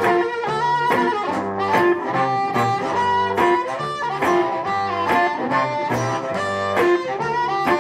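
Blues harmonica played in a neck rack, bending notes over slide guitar, with a steady percussive beat roughly every 0.8 seconds from a one-man band's setup.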